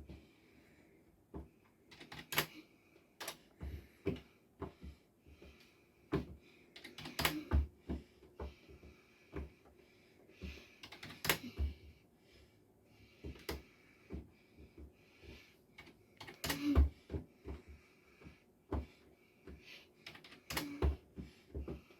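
Irregular sharp clicks and taps, about one or two a second and uneven in spacing, many with a dull low thud beneath, over a faint steady hum.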